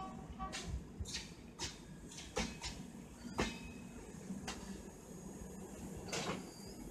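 AC express passenger coaches rolling past over jointed track: a low running rumble with sharp, irregularly spaced clacks and knocks as the wheels cross rail joints.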